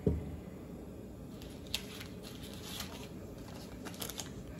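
A single thump right at the start, as the glass oil dispenser is set down on the counter, then a steady low background noise with a few faint light clicks and taps of handling.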